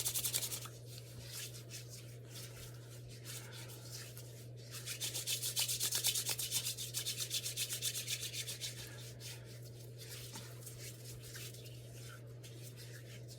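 Rapid rhythmic rubbing of hands on skin, working in a skin-calming cream, about eight strokes a second in two spells: one stopping just under a second in, another from about five to nine seconds in, with fainter rubbing between.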